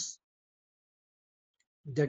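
Near silence in a pause of a man's lecturing speech: the end of one word just at the start, dead quiet, then his next words begin near the end.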